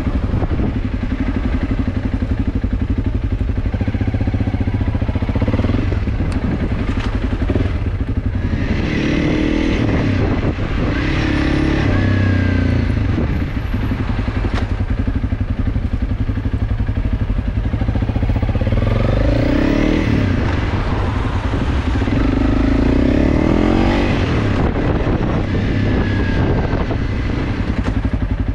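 Honda CRF300L Rally's single-cylinder four-stroke engine running under way, with a steady rumble. Its pitch climbs as it accelerates twice, about a third of the way in and again about two-thirds in.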